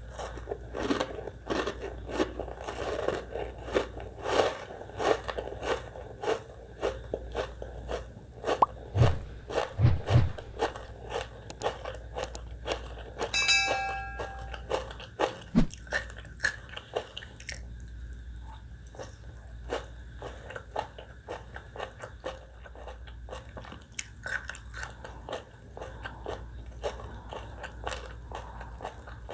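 Close-miked eating of spicy catfish salad with shredded sour green mango: crisp, wet crunching bites and chewing, dense for the first half, then slower and softer chewing.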